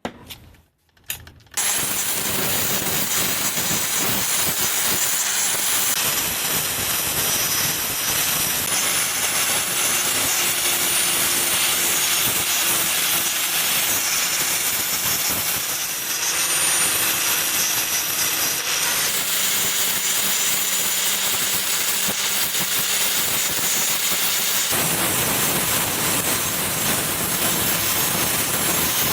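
Workshop machine running steadily with a loud rushing noise and a faint high whine above it, in several cut-together stretches.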